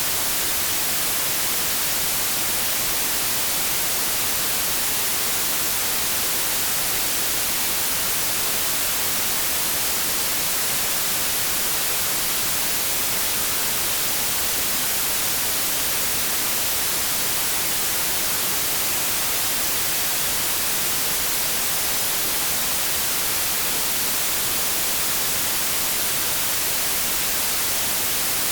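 Continuous white noise: a steady, even hiss with most of its energy in the high end, unchanging throughout.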